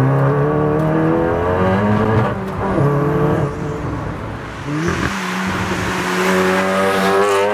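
Turbocharged four-cylinder engine of a modified big-turbo 2014 Volkswagen Golf R Mk7 accelerating hard. Its note rises, drops at a gear change about two seconds in, then climbs again. In the second half a steadier engine note comes with growing hiss as the car approaches.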